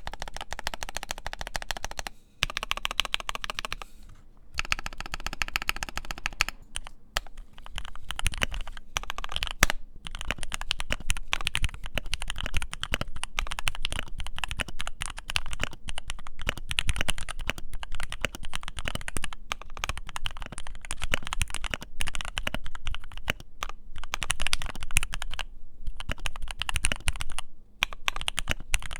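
Typing on a modded Keychron Q3 mechanical keyboard with filmed and lubed Gateron Milky Yellow linear switches: a fast, continuous stream of keystrokes, broken by a few brief pauses.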